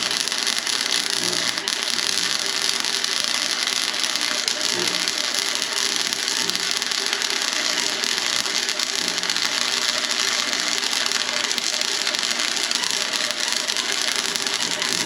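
Wire-feed welder arc crackling steadily while laying a weld bead.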